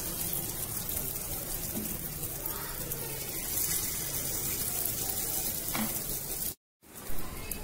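Egg and vegetable batter sizzling steadily in hot oil in the cups of a paniyaram pan. The sound cuts out for a moment near the end.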